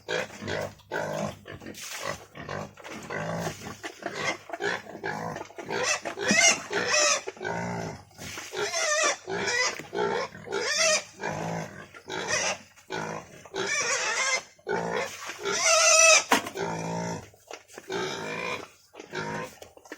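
A group of pigs grunting continuously at feeding time, breaking into repeated high-pitched squeals. The loudest squeal comes about sixteen seconds in.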